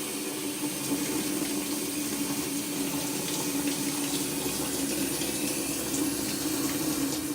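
GE washing machine running its basket-clean cycle: water rushing steadily in the tub over a steady low hum.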